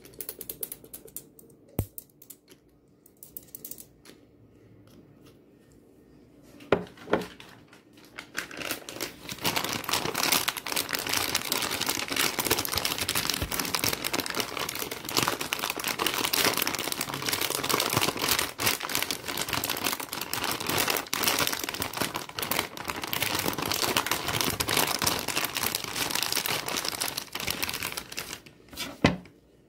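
Fingers scratching and crinkling the soft plastic packaging of a pack of baby wipes: a dense, continuous crackle that starts about eight seconds in, after a few light clicks and knocks. A single knock near the end.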